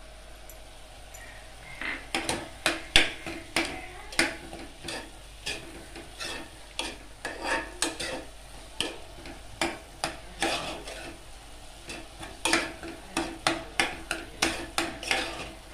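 A steel spoon stirring onions, ginger-garlic paste and turmeric powder in an aluminium pressure cooker, starting about two seconds in. It scrapes and clinks irregularly against the pot, a few knocks a second, with brief pauses.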